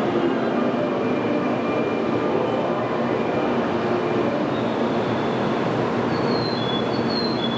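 N700-series Kyushu Shinkansen train at a station platform: a loud, steady wash of train and platform noise. Faint high tones sit above it, with two short high chirps near the end.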